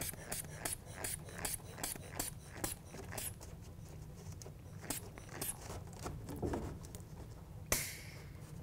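Air wedge's rubber hand pump being squeezed over and over, a run of quick clicking strokes about three a second that thin out after about three seconds, inflating the bag to shim the window frame. A sharper click with a short hiss comes near the end.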